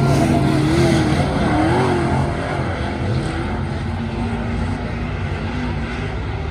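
Race car engines running at speed, their pitch rising and falling.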